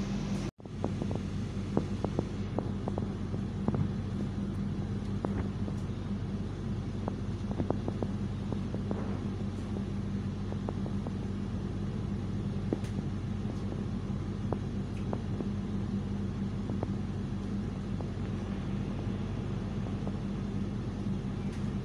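Passenger train running: a steady rumble with a low hum, and scattered light clicks and knocks over the first half.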